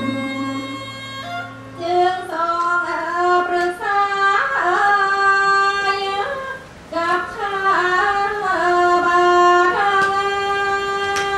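A solo voice singing a slow Thai classical melody in long held notes that slide and step between pitches.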